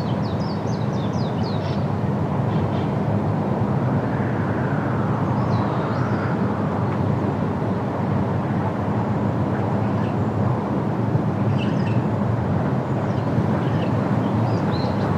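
Outdoor field ambience: a steady low rumble with small birds chirping over it, a quick run of chirps at the start and scattered ones later.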